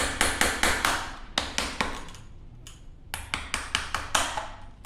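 Sharp metal-on-metal taps in three quick runs of several strikes each, from a tool working the security washer and axle nut of an electric scooter's wheel to loosen them.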